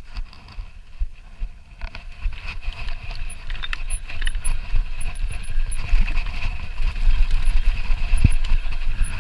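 Mountain bike riding down a rocky trail: tyres running over loose stone, the bike rattling, and wind rumbling on the microphone, growing louder about two seconds in.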